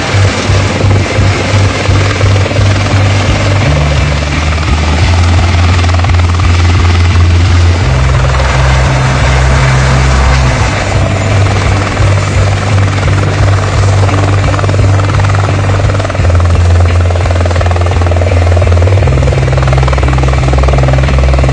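Eurocopter EC130 air-ambulance helicopter running as it descends and lands, its turbine and rotor noise steady and loud, with fast rotor beats most marked early on. Background music with a slow bass line that changes note every few seconds plays over it.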